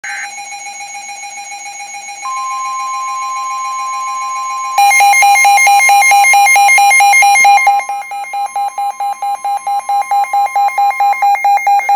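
Emergency Alert System alert tones announcing a severe thunderstorm warning. A steady electronic tone is joined about two seconds in by a second, slightly higher steady tone. About five seconds in, a much louder rapid electronic beeping starts on top and keeps going.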